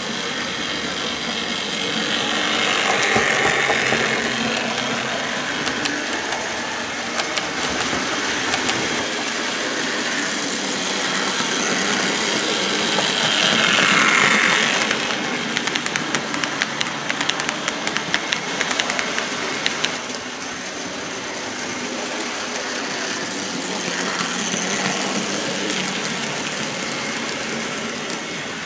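OO gauge model steam locomotive and coaches running on the layout track: a steady whirr of motor and wheels that swells as the train passes close, about three seconds in and again around fourteen seconds, with a quick run of clicks over the rail joints in the middle.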